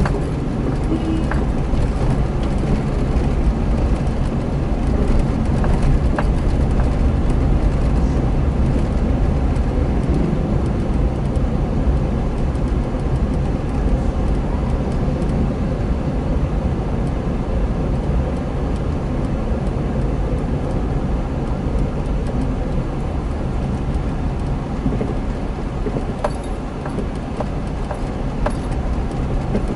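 Steady low rumble of a car's engine and tyres on the road while driving, heard inside the cabin.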